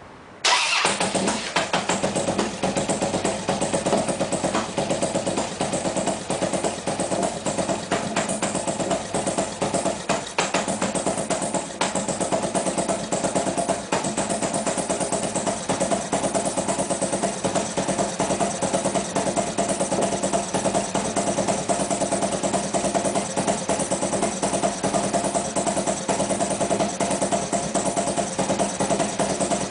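Harley-Davidson V-twin motorcycle engine starts abruptly about half a second in, then runs at a steady idle with an even pulsing beat.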